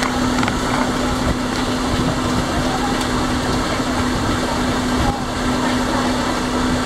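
Electric drive motor of a solar-powered boat running steadily under way, a steady low hum, with wind and water noise.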